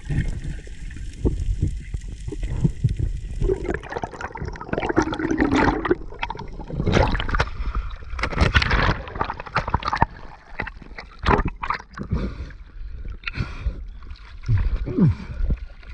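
Water noise on a camera in the sea: a steady hiss underwater for the first few seconds, then irregular sloshing and splashing at the surface.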